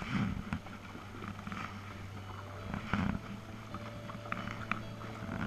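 Kayak paddle strokes, the blades dipping and splashing in calm river water, a stroke roughly every one and a half seconds.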